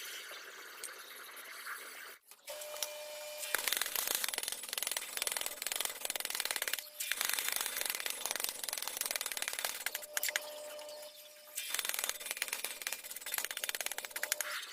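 A metalworking tool rasping on steel in three long stretches of fast, dense scratching, with a faint steady whine in the gaps between them, as a cleaver blade is worked.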